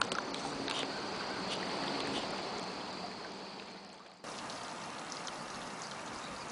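Steady rush of a creek's running water. It fades slightly and then comes back abruptly about four seconds in, with a few faint clicks.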